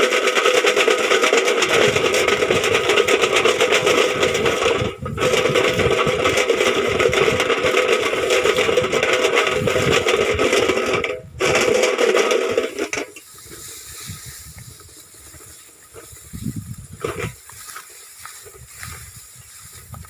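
A tin can clattering rapidly and without let-up, a loud metallic rattle of the kind used to scare rice-eating munias off a paddy. It breaks off briefly twice and stops about thirteen seconds in, leaving only a few faint knocks.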